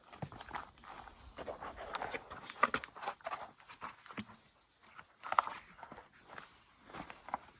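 Footsteps crunching and scuffing on rocky, gritty ground, in an uneven series of steps and scrapes.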